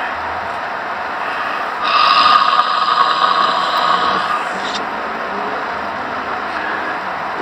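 A sleeping child snoring: one long snore starts about two seconds in and lasts about three seconds, part of a breath-by-breath series, over a steady background noise.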